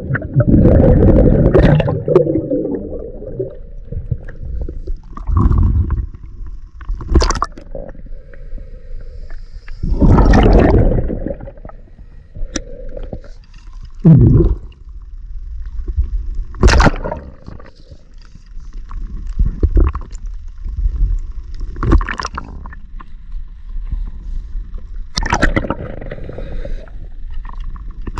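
Scuba diver breathing underwater: exhaled bubbles gurgle out of the regulator in long surges every several seconds, with sharp knocks and scrapes in between.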